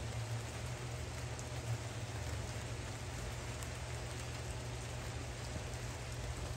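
Steady rain falling, drops pattering on the water of an above-ground pool, over a low steady rumble.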